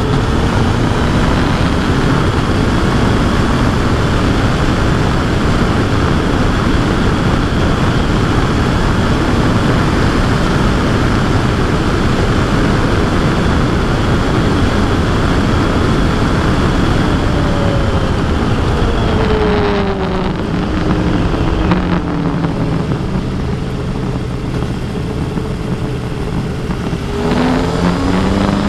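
Kawasaki Versys 1000 SE's inline-four engine on the move under a heavy rush of wind noise. About twenty seconds in the revs fall as the bike slows, the engine runs lower and quieter for several seconds, then the revs climb again near the end.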